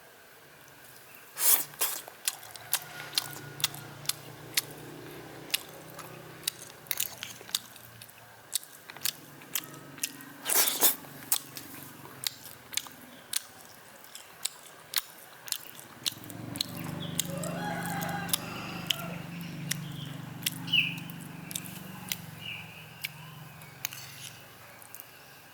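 A rooster crowing about two thirds of the way through, over a run of sharp clicks and taps that go on throughout.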